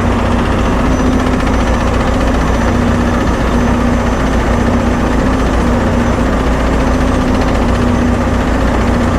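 Volvo D13 inline-six diesel of a 2019 Volvo VNL 860 truck idling steadily, a loud even rumble with a steady hum. The engine is being run to draw fresh power steering fluid through the system and work the air out after a pressure hose replacement.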